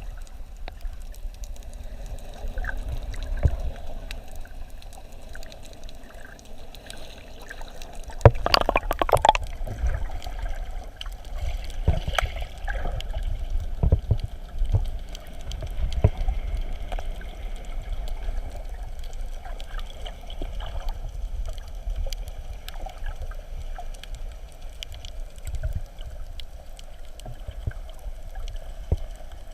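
Water sloshing and gurgling around a camera held underwater, with a louder burst of bubbling about eight seconds in.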